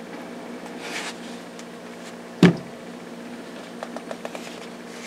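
Handling noise as a Baikal MP-161K .22 rifle is turned over on a table: one sharp knock about halfway through as the synthetic stock meets the tabletop, with a faint rustle before it and a few light ticks after. A steady faint hum underlies it all.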